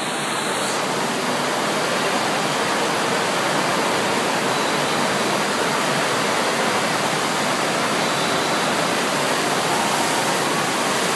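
Steady rush of water from an indoor surf-simulator wave machine: a thin, fast sheet of water pumped up and over a padded ramp.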